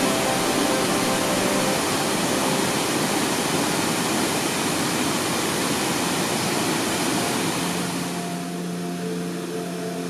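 Waterfall pouring down a rock face: a steady rush of falling water. Soft background music fades out in the first couple of seconds and comes back near the end, as the rushing becomes quieter.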